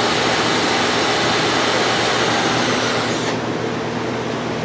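Milling machine running with an end mill cutting an aluminium test piece: a steady hiss over the machine's hum. The hiss cuts off about three seconds in, leaving the steady hum.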